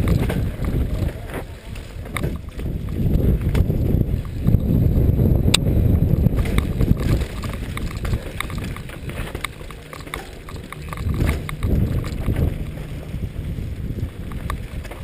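Downhill mountain bike ridden fast over a rocky dirt trail, heard from a helmet camera: wind buffeting the microphone, with tyres crunching over dirt and stones and the bike rattling and knocking over bumps.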